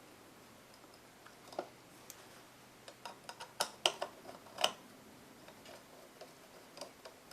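Light metallic clicks and taps as a 5/16 nut is fitted with a nut driver onto the bracket of a refrigerator evaporator fan motor. They come as a scatter of sharp ticks, bunched about three to five seconds in.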